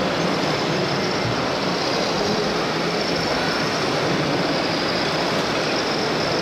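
Steady din of RC model trucks and construction machines running, with a faint high whine throughout.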